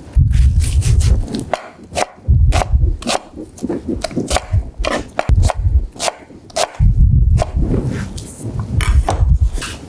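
Chef's knife dicing a red onion on a cutting board: quick knife strikes, each with a dull thud on the board, in several runs with short pauses between.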